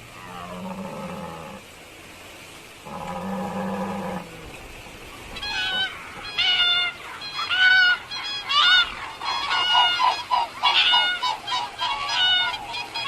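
Two low, drawn-out calls, then from about five seconds in a flock of birds calling loudly, many short overlapping calls that rise and fall in pitch.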